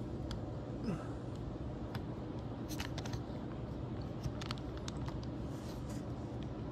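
HO-scale model train rolling along its track, picked up by a camera riding on one of its cars: a steady low rumble with scattered light clicks and ticks.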